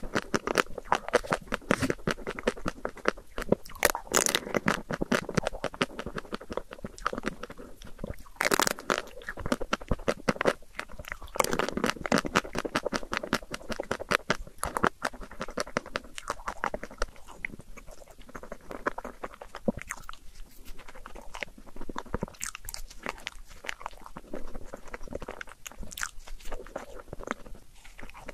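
Close-miked chewing and crunching of chocolate desserts, with many quick, irregular crisp cracks and soft mouth sounds; near the end a bite into a chocolate ice cream sandwich.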